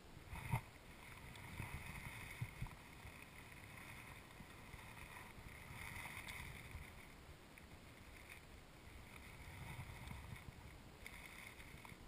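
Muffled handling of a wooden beehive frame being lifted out and held up: a knock about half a second in and two small clicks a couple of seconds later, over a low rumble and a faint hum that swells and fades.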